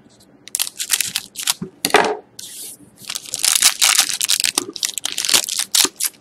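A pack of Upper Deck SP Game Used hockey cards being torn open, with its wrapper crinkling and ripping in quick bursts of crackle. The tearing is densest about halfway through.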